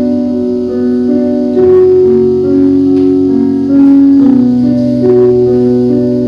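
Piano playing slow, held chords, a new chord struck every second or so.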